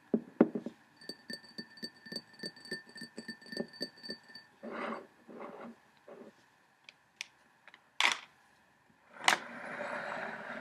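Rhythmic clinking on a ceramic teacup, about three to four strokes a second, with the cup ringing on a steady tone; it stops about four and a half seconds in. After that come soft rustles, two sharp swishes and a soft hiss near the end.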